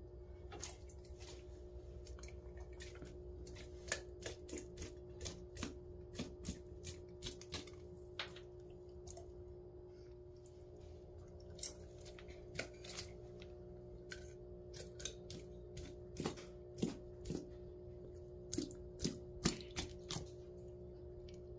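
Asian water monitor chewing chicken: a run of sharp, irregular clicks and snaps from its jaws working the meat, bunched into two spells, over a steady low hum.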